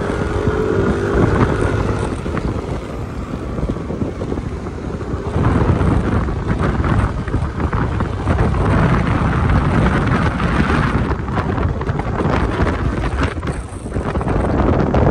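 Wind buffeting the microphone of a moving motor scooter, with the scooter's engine running underneath. A steady engine whine stands out in the first couple of seconds, then the wind rush covers it.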